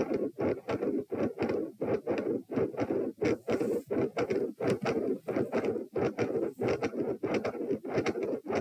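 Handheld Doppler probe on the chest picking up heart blood flow as rhythmic pulsing whooshes, several a second. The uploader hears multiple heart murmurs in it.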